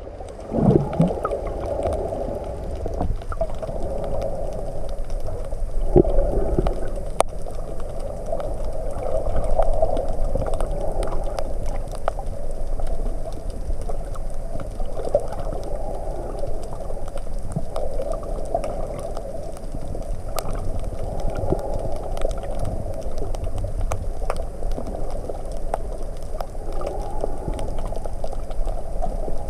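Muffled underwater sound through a GoPro's waterproof housing: a steady churning wash of water, with faint scattered clicks.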